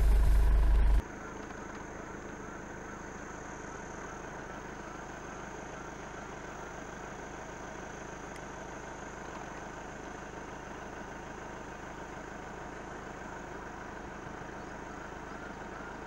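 4x4 camper's engine and road noise rumbling loudly for about the first second, then dropping suddenly to a quieter, steady idling engine with a faint steady high whine over it.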